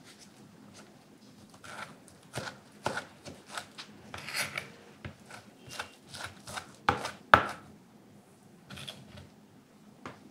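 Chef's knife mincing bacon on a cutting mat: a run of irregular knife strikes against the board starting about two seconds in, the loudest two about two-thirds of the way through, then a few softer taps.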